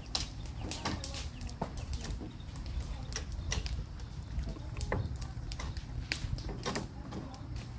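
Irregular knocks, bangs and clatter from workers tearing the roof off a mobile home, over a steady low rumble of wind on the microphone.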